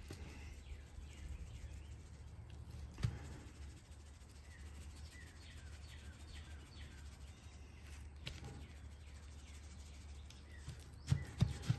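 Faint outdoor ambience: small birds chirping in the background over a low steady hum, with a single knock about three seconds in and a few louder knocks near the end.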